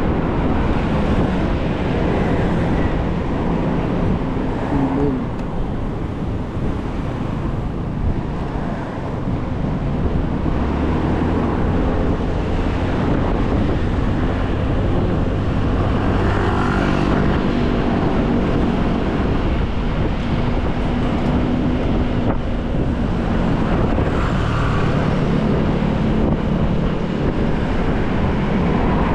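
Wind rushing over the microphone of a moving electric scooter, mixed with city traffic noise; now and then the hum of a nearby vehicle's engine rises and fades.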